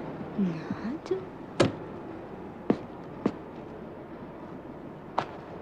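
Railway carriage doors being slammed shut before the train leaves: four sharp knocks over steady station noise, the first the loudest.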